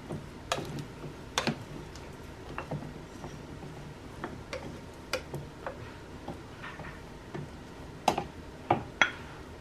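Plastic rice paddle tapping and scraping in the inner pot of a Cuckoo rice cooker as freshly cooked rice is fluffed and scooped: irregular light clicks, with a few louder knocks near the end as the rice is served into a ceramic bowl.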